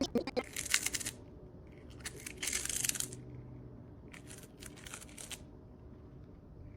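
Packaging being handled: crinkling and rustling in three short bursts spread across a few seconds.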